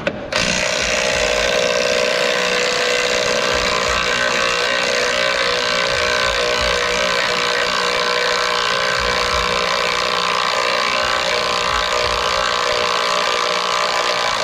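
A shop motor or air tool running at one steady, high pitch for about fourteen seconds, starting and stopping abruptly.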